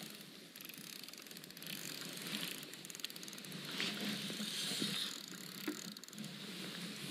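A spinning rod and reel being handled, with the reel clicking and a jacket rustling.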